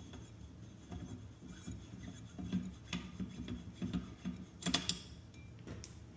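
Metal parts of an AK silencer hub adapter rubbing and clicking as they are handled and fitted together, with a few sharp metallic clicks about three-quarters of the way through.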